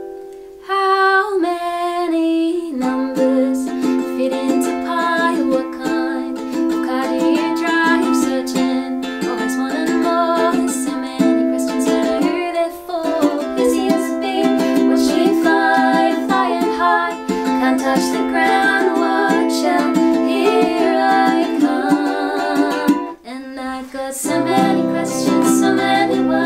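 Ukulele playing a picked, melodic song introduction, with acoustic guitar alongside. A brief break comes near the end, after which lower guitar notes join in.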